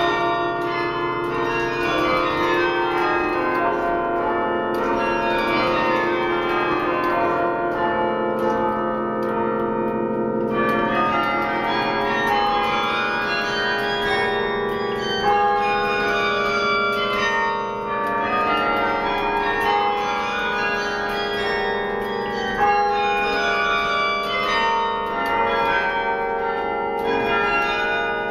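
The Rockefeller Chapel carillon, 72 bronze bells, played from its baton keyboard and pedals: music of many bell notes struck in quick succession, ringing on and overlapping above the long hum of the lower bells.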